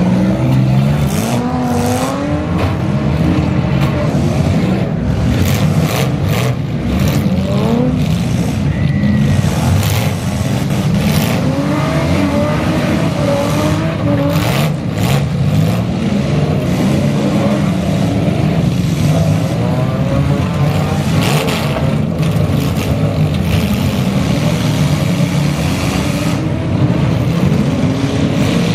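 Many compact demolition-derby cars' engines revving up and down together, with repeated sharp metal crashes as the cars ram one another.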